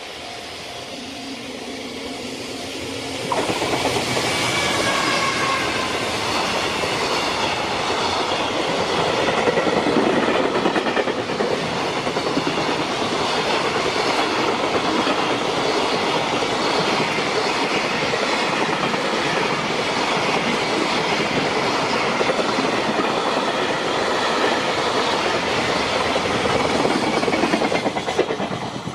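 A JR Freight train passing at close range on the Tokaido Main Line, its wheels clattering rapidly over the rail joints. The sound builds for about three seconds, jumps sharply as the train reaches the crossing, keeps up a steady clatter for about 25 seconds, and drops away near the end as the last wagons pass.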